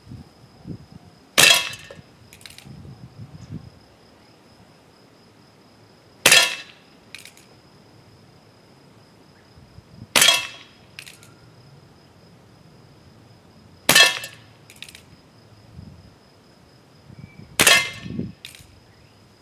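Umarex Colt SAA Peacemaker CO2 revolver, fitted with a rifled replacement barrel, firing pellets: five sharp shots about four seconds apart, each followed under a second later by a fainter click.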